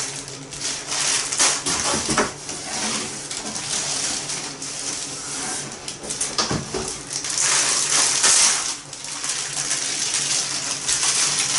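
Plastic wrappers of disposable hand warmers crinkling and rustling as packs are torn open and the warmers pulled out, an uneven crackle of many small rips and rustles.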